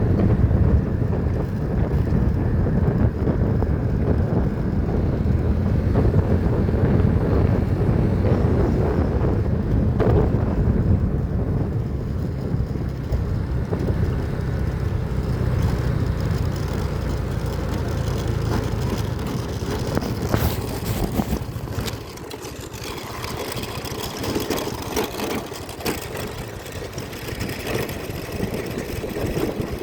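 Vehicle travelling along a road, a steady low rumble with wind rushing over the microphone; the rumble drops off about two-thirds of the way through.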